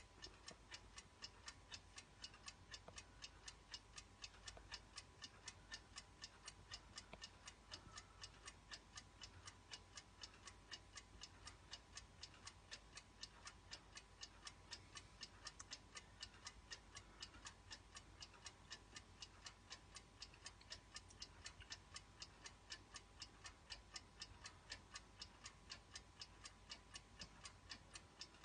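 1960s twin-bell mechanical alarm clock ticking steadily, about four quiet ticks a second from its escapement.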